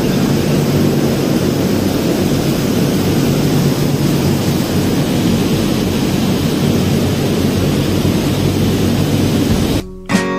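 A loud, steady rushing noise with a low hum under it, cut off suddenly near the end as acoustic guitar music starts.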